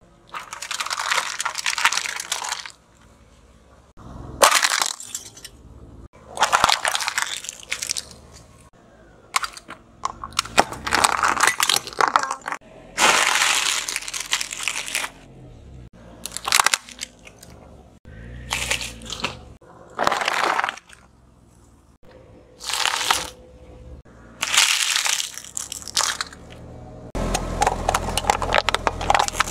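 Car tyre crushing a run of objects one after another: crumpling aluminium foil trays, a bag of crunchy snacks and plastic bottles. It makes about a dozen separate crackling, crunching bursts, each a second or two long.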